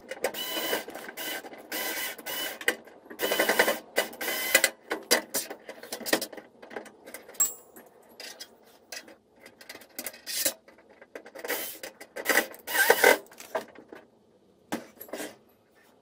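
Cordless electric screwdriver running in a series of short bursts with pauses between them, driving screws back into the sheet-metal back panel of a tumble dryer.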